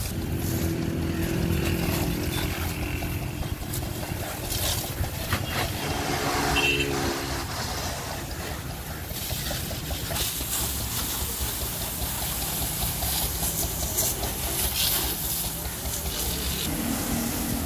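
A high-pressure water jet spraying against a truck's wheels and chassis, hissing over a steady low motor drone.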